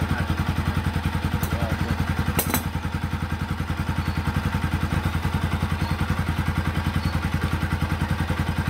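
Bajaj Pulsar NS200's single-cylinder, liquid-cooled engine idling steadily with an even, fast pulse, running normally after its burnt electrical system was restored. A single short click sounds about two and a half seconds in.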